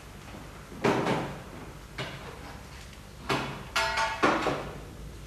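Kitchenware being handled on a table: a metal bowl, a tray and plastic containers set down and moved, giving a handful of separate knocks and scrapes, with a busier cluster of them about three to four seconds in.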